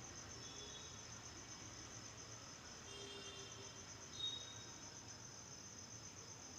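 Faint, steady insect chirping: a rapid, even trill that carries on without a break, with a brief soft sound about four seconds in.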